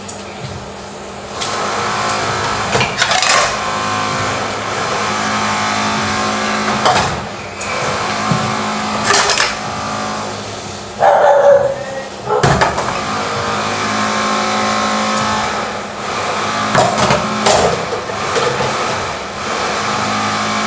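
A power tool's motor running from neighbouring construction work. It holds a steady whine with a low hum under it, surging louder at times and briefly dropping off a couple of times.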